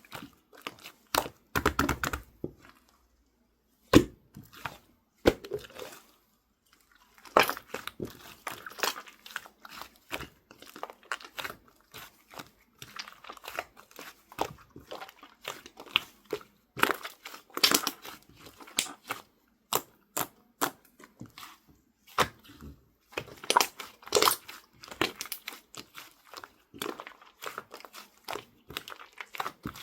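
Clear slime being squished and stretched by hand, making irregular sticky crackles and small pops, with two short pauses in the first few seconds.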